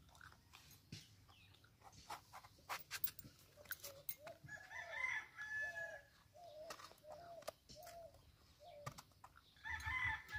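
A rooster crows about halfway through, followed by a string of short clucks and another crow near the end. Before that, sharp clicks of a small knife cutting eggplant over a metal pan.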